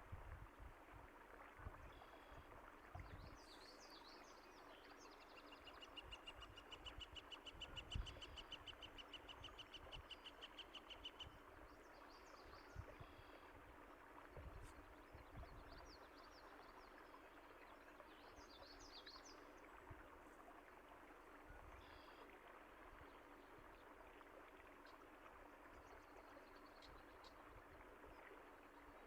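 Faint running stream water with small birds chirping now and then. A rapid, even trill runs for about five seconds a quarter of the way in, and a few low thuds sound in the first half.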